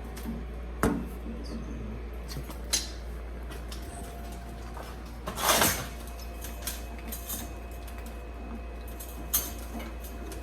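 Metal parts clinking and knocking, a few separate clicks and a louder half-second scrape about five and a half seconds in, as a collet-block adapter is fitted to the back of a lathe spindle. A steady low shop hum lies underneath.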